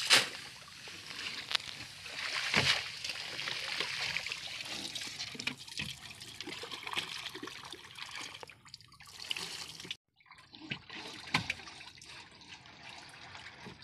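Seawater trickling and dripping off a fishing net as it is hauled by hand into an outrigger canoe, with small splashes and a few sharp knocks against the boat.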